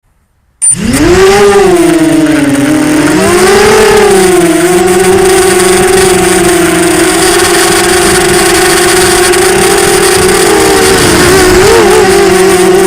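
Arris 2204 2300KV brushless motors and propellers of a 250-size FPV quadcopter, heard from the onboard camera. They start abruptly about half a second in, spool up in a rising whine, dip and rise again with the throttle, then settle into a steady high whine that wavers briefly near the end.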